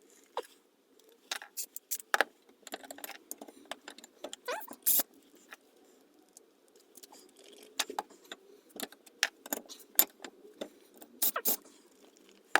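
Irregular sharp metallic clicks and clinks of a spanner working the nuts off the rear sprocket studs of a Honda CB250RS and the loose nuts being handled.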